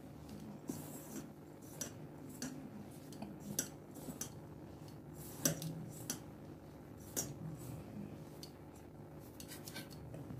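A hand mixing dry flour in a stainless steel bowl: soft rubbing with irregular light metallic clinks and taps against the bowl, over a faint steady low hum.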